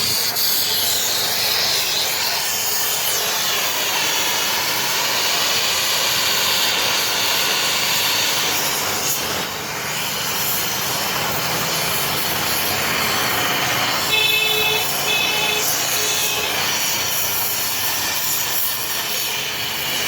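Welding arc on a car cylinder head's valve seat, hissing steadily, with a brief whine mixed in about two-thirds of the way through.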